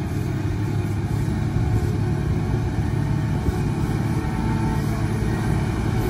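Wheel loader's diesel engine running steadily under load as the machine pushes a bucketful of dirt.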